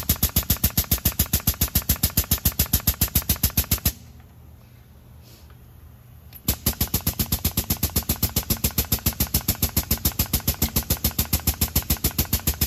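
Air-powered grease gun cycling in a fast, even rattle of about five strokes a second, pumping grease into the dry, squeaking bucket pins of a Cat 279D track loader. It stops about four seconds in and starts again about two and a half seconds later, with a low hum underneath in the gap.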